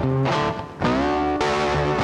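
Background music: distorted electric guitar over bass, with a slide up into a held chord about a second in.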